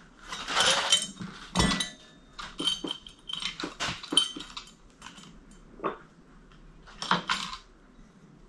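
Small metal engine parts and hand tools clinking and clattering as they are handled, a string of sharp knocks and clicks, some with a short metallic ring, busiest in the first two seconds and again about seven seconds in.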